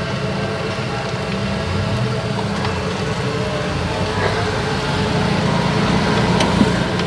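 Steady low mechanical rumble, with a few light clinks near the end.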